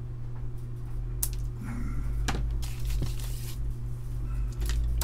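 Small parts and a ribbon cable handled on a workbench: a few light clicks and taps, with a brief rustle about two and a half seconds in, over a steady low hum.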